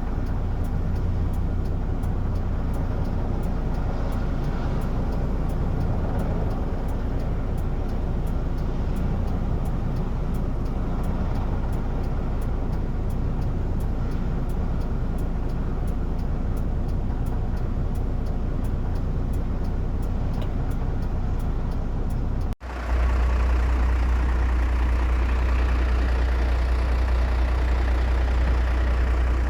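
Engine noise running steadily, heavy in the low end. About 22 seconds in the sound cuts out for an instant and comes back louder, with a stronger low drone and more high-pitched engine noise above it.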